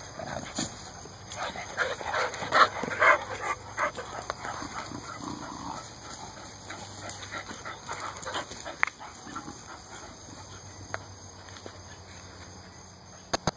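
Dog vocalising and moving about, with a cluster of short, sharp sounds that are loudest around two to four seconds in, then quieter scattered noises.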